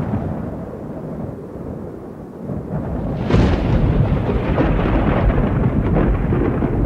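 Thunder: a low rumble that dies down, then a sharp crack about three seconds in that rolls into a loud, continuing rumble.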